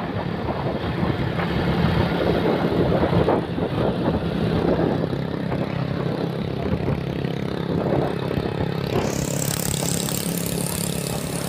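Motorcycle engine running steadily on the move, under a rushing haze of wind and road noise that turns hissier about nine seconds in.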